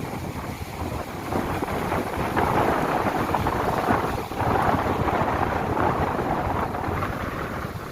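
Winter sea surf breaking and washing up the beach in a steady roar, swelling louder a few seconds in, with wind rumbling on the microphone.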